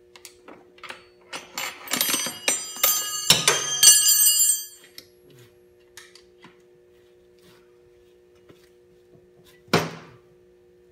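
Metal hand tools clinking and rattling against each other with a bright ringing, for about three seconds from the second second, then small scattered ticks and a single sharp knock near the end. A faint steady hum runs underneath.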